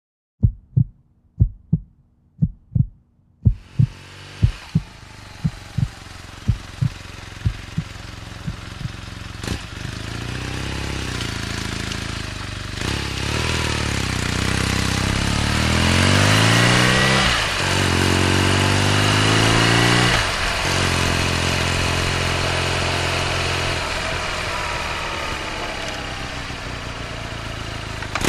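Deep regular thumps about two a second, alone at first and then fading out under the BMW R nineT's boxer twin engine, which runs low and then pulls away, its revs rising and dropping twice in gear changes before settling into steady cruising.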